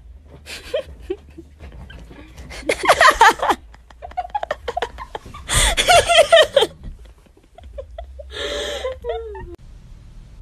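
A person laughing hard in two high-pitched bursts, about three seconds in and again around six seconds, then a shorter cry that falls in pitch about nine seconds in.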